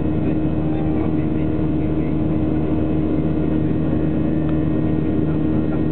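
Steady drone inside a Boeing 737-700 airliner's cabin: its CFM56 turbofan engines and the rushing air make an even, unbroken noise with a low hum.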